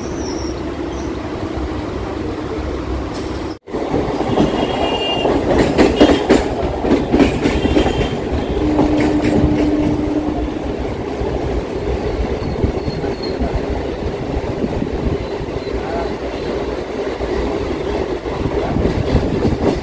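Local suburban train running on the rails, its wheels clattering over the rail joints. The sound drops out for an instant a few seconds in and comes back louder, and a short steady tone is heard for about two seconds in the middle.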